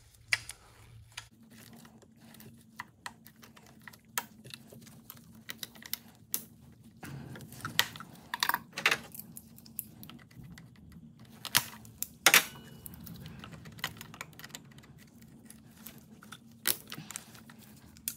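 Irregular metal clicks and clacks of locking pliers (vice grips) struggling with a spring hose clamp on a rubber coolant hose. The sharpest, loudest clacks come a little past halfway.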